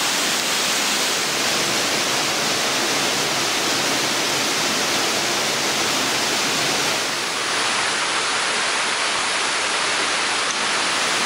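A waterfall cascading over rock: a steady, dense rush of falling water.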